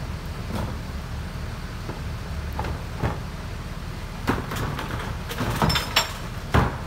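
Freightliner M2 garbage truck's engine idling steadily at the rear of its McNeilus rear-load body while trash is dumped into the hopper by hand, with a run of knocks and bangs that grows busier in the second half, the loudest bang near the end.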